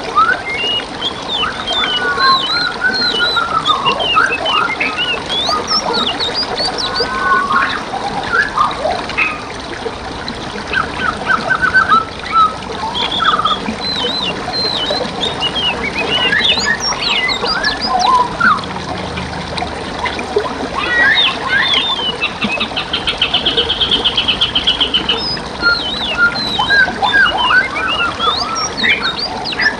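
Several songbirds singing and chirping over one another in quick whistled phrases, with a rapid buzzy trill about three-quarters of the way through, over the steady trickle of flowing water.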